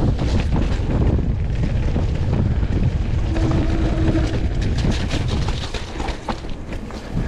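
Wind buffeting the action camera's microphone and trail rumble from a Rock Machine Blizzard mullet mountain bike riding down a rough dirt trail, with many sharp rattles and clicks from the bike over bumps. A short steady tone sounds for about a second in the middle, and the rumble eases for a moment near the end.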